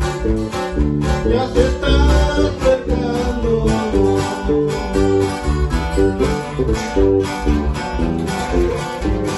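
Acoustic guitar strumming with an electric bass playing along: a small band rehearsing a Spanish-language Christian praise song.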